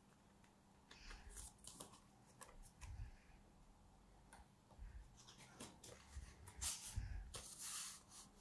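Faint rustling and scraping of paper and card as a certificate is slid out of its card folder: a scatter of soft short noises, loudest near the end.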